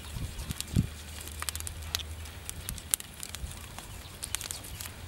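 A knife scoring the skin of a whole pig on a spit: scattered light clicks, with a few soft low thumps in the first second. A low hum stops a little before halfway.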